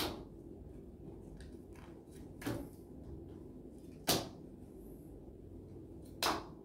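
Playing cards turned over and laid down on a table one at a time, four short taps a second or two apart.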